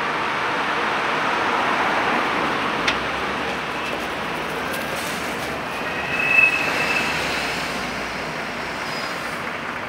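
Tram rolling past on its rails, the running noise swelling and then easing off. There is a single sharp click near three seconds in and a short, high wheel squeal a little after six seconds.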